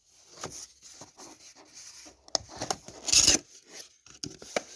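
Cardboard box being handled and opened by hand: scattered rubbing and scraping of cardboard with light knocks, the loudest scrape about three seconds in.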